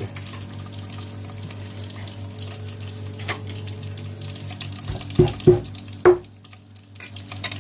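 Whole spices (crushed green cardamom, cinnamon sticks and cloves) sizzling steadily in hot desi ghee in a kadhai. A few sharp knocks sound about five to six seconds in, and the sizzle dips briefly after them.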